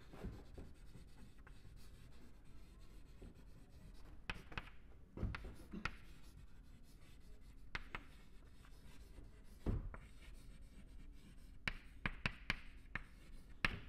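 Chalk writing on a chalkboard: faint scratching with scattered sharp taps of the chalk on the board, several in quick succession near the end.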